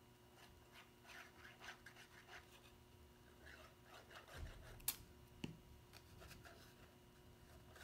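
Faint rustling and rubbing of cardstock as the tabs of a paper box are glued and pressed together by hand, with a couple of light taps about five seconds in.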